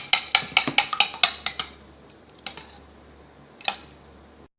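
A mixing utensil beating rhythmically against a bowl, about five clicks a second, as wet and dry ingredients are stirred together into dough. The beating stops after about a second and a half, followed by two single knocks against the bowl.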